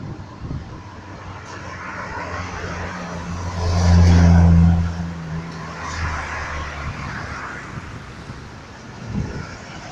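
Road traffic passing: cars driving by one after another, with one car's engine drone swelling loudly as it passes close by about four seconds in.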